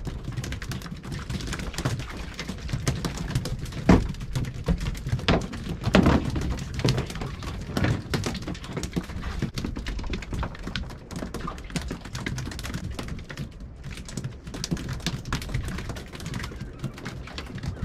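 Wind rumbling on the microphone aboard a small boat at sea, with irregular knocks and clicks from fishing tackle and fish being handled; two louder thuds come about four and six seconds in.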